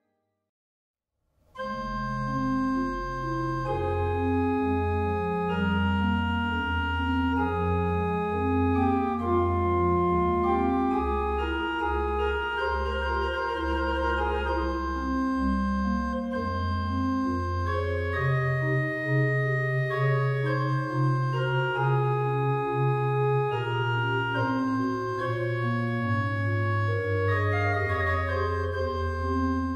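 Pipe organ playing a solo melody on the Hauptwerk's Praestant 8' coloured with the Nasat 2 2/3', over a soft accompaniment on the Brustwerk's Gedackt 8' and a Subbass 16' pedal line. This is the loud, principal-coloured solo sound of a fifth mutation placed in the main manual. The playing begins after about a second and a half of silence.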